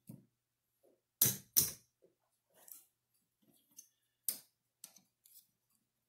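Casino chips clicking against each other as they are picked up and stacked by hand: two sharp clacks about a second in, then a few lighter clicks.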